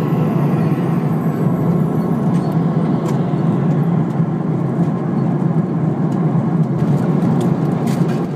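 Steady cabin drone of a Boeing 777 airliner in flight, jet engine and airflow noise heard from inside the cabin, with a low, even rumble.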